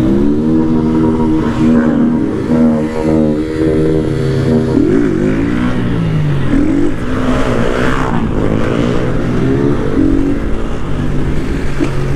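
Motorcycle engine revving while riding, its pitch climbing and dropping again and again through gear changes. A second engine's sweeps cross it in places, from other motorcycles revving on the street.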